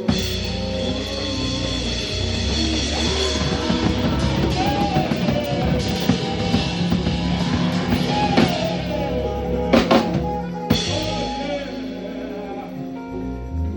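A rock band playing live, with a full drum kit and guitar, the melody wavering above a heavy low end; a few sharp drum hits stand out near the end.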